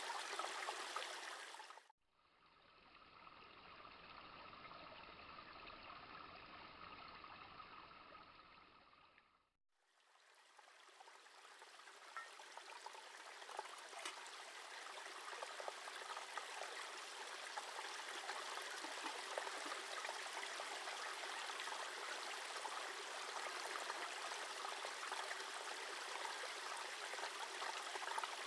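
A small Scottish burn running and trickling over stones, heard across several cuts: the sound changes abruptly about two seconds in, drops out briefly around nine seconds, then fades back in and grows louder.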